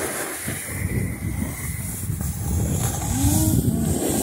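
Wind buffeting a phone's microphone in gusts, a low, uneven rumble. A short tone that rises and falls comes through about three seconds in.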